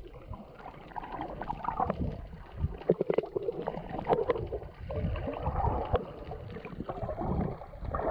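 Muffled underwater sound from a submerged camera: water gurgling and bubbling, with scattered sharp clicks.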